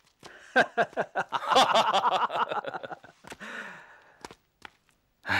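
A man laughing heartily in quick pulsing bursts that grow into one long laugh and trail off after about three seconds. A loud new voice starts right at the end.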